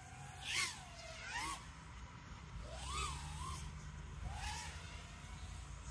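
Faint whine of an FPV freestyle quadcopter's motors, rising and falling in pitch several times as the throttle is worked, over a low steady rumble.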